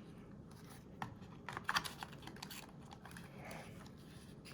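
A few faint clicks and light taps of metal lighters being handled, with a small cluster about one and a half seconds in.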